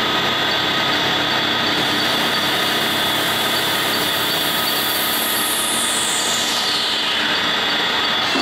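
CNC lathe turning a metal part with coolant spraying: a steady machining din with high-pitched tones running through it. A whine falls in pitch over a couple of seconds past the middle.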